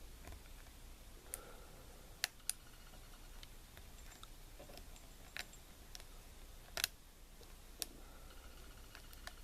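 Lock pick and tension wrench working inside a small brass pin-tumbler padlock: faint scraping with about seven sharp, irregularly spaced metallic clicks.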